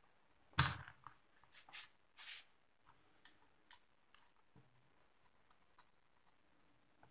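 Hands handling a soldering iron, wire and a circuit board on a workbench: a sharp knock about half a second in, then a string of small clicks and rustles that thin out to a few faint ticks.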